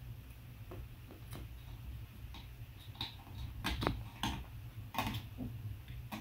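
A British Shorthair cat in heat rolls on the carpet and grips and rubs a wooden bench leg, making scattered soft ticks and scratches of claws on carpet and wood. They are busiest about halfway through, over a steady low hum.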